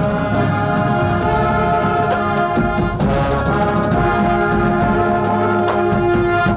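High school marching band playing, the brass holding long chords over repeated drum strikes.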